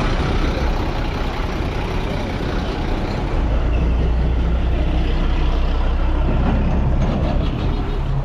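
Road traffic close by, with a vehicle engine running loud and steady; its low hum grows stronger from about three seconds in.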